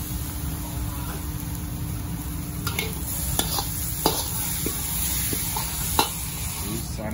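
Metal ladle scraping and knocking against a steel wok as freshly fried pad thai is pushed out into a container, over steady sizzling and a low kitchen roar. A few sharper clanks stand out, the loudest about four and six seconds in.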